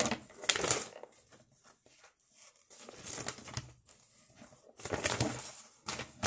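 Paper rustling and crinkling as it is handled, in three short bursts with quiet gaps between.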